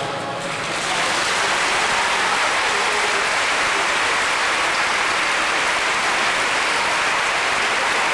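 Audience applause in a gym, swelling within the first second and then holding steady.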